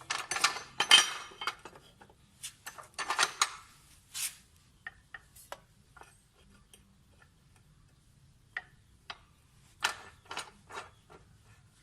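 Metal clinks, knocks and scrapes from a steel angle bar being handled at a metal cut-off saw, before the saw is switched on. The knocks come in irregular clusters, busiest in the first few seconds and again near the end, with a quieter stretch in the middle.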